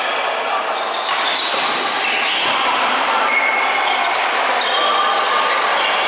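Echoing din of several badminton games in a large sports hall: short squeaks of court shoes on the floor and racket hits on shuttlecocks, with voices mixed in.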